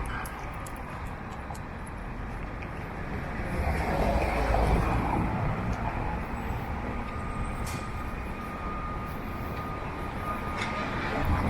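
City street traffic: a steady rumble of vehicles, with one passing more loudly about four seconds in.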